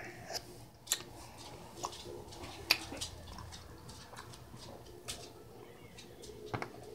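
Faint, scattered small clicks and taps close to the microphone, a few of them sharper than the rest.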